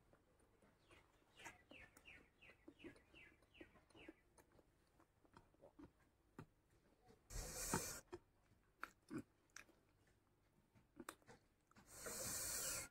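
Close-up mouth sounds of a person eating with their hands: quiet chewing, with small wet clicks and smacks. Two short hissing rushes of noise come about 7 seconds in and near the end, loud against the quiet eating.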